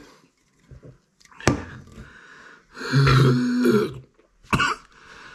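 A man clearing his throat and coughing right after downing a can of beer: a sharp knock about a second and a half in, a loud throat-clear lasting about a second around the middle, and a short sharp cough near the end.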